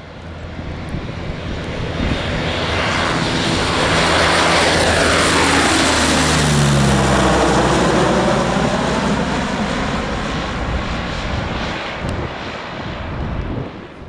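Convair 580 air tanker's two Allison turboprop engines and propellers passing low and close overhead: the sound builds as it approaches, is loudest about halfway through, and the engine whine and propeller tone drop in pitch as it goes by, then fade away.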